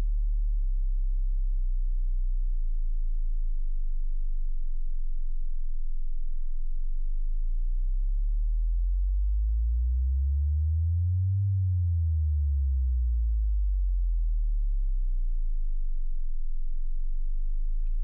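A very low electronic sine-wave tone, steady at first, then gliding up in pitch to about twice its starting pitch around the middle and sliding back down to where it began.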